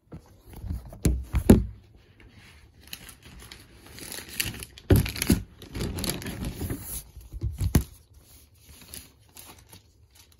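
A vinyl LP being handled and put away in its paper and plastic sleeves: rustling and crinkling, with a few handling knocks, the loudest about a second in.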